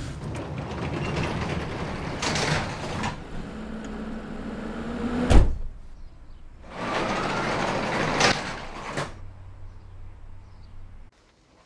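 Car running, heard from inside the cabin, then a sharp thud about five seconds in. After it comes a rolling, rushing rumble over a low steady hum, like a garage door moving, which fades away near the end.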